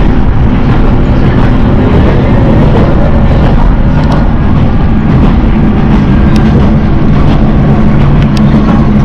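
Nagara 600 diesel railcar under way, heard from inside the car: a steady diesel engine drone under wheel-on-rail running noise, with a few light clicks.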